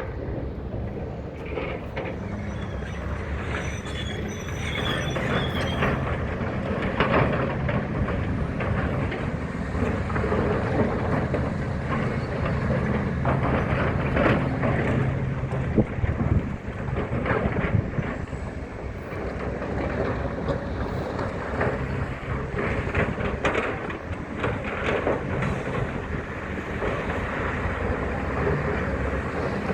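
Hitachi 870 excavator's diesel engine running steadily under load, with scattered metallic clanks and a brief high squeal about four seconds in.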